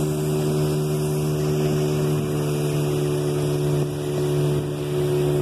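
Outboard motor of a small open boat running steadily at speed, a constant drone that holds one pitch, with water rushing past the hull.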